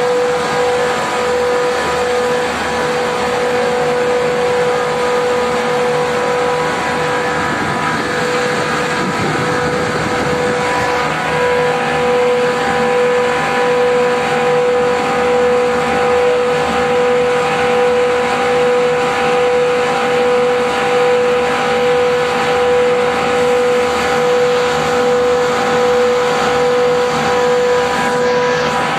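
165-ton air-cooled chiller with a twin-screw R134a compressor running, giving a steady high whine over constant machine noise.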